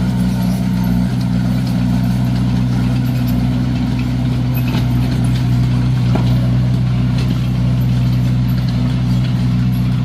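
Komatsu D21A bulldozer's diesel engine running at a steady speed: a constant low drone with faint scattered ticks.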